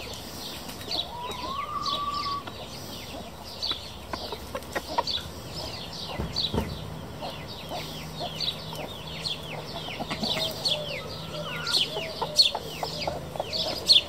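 Chickens foraging, a Marans rooster and a hen, giving occasional calls: a rising call about a second in and lower wavering calls near the end. Through it all runs a quick, near-constant series of short, high, falling chirps.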